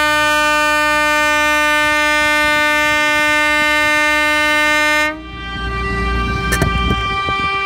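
Air horn blown in one long, steady blast that cuts off about five seconds in. A fainter horn tone at a slightly higher pitch follows and runs almost to the end.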